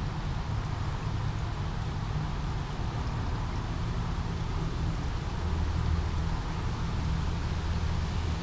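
Small brook flowing, a steady rush of water over a low rumble that grows a little louder about two-thirds of the way in.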